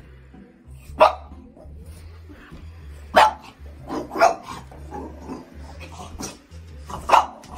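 Dog barking repeatedly: a run of sharp barks with quieter ones in between, the loudest about a second in, around three to four seconds in, and near the end.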